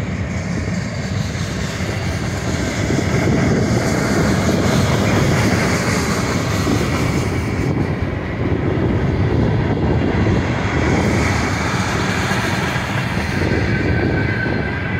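Freight cars of a mixed manifest train rolling past close by: boxcars, tank cars, covered hoppers and loaded bulkhead flatcars. Steel wheels on the rails make a steady, loud noise.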